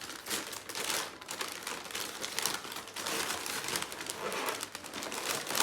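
Wrapping paper or gift packaging rustling and crinkling as a present is unwrapped, irregular crackles throughout.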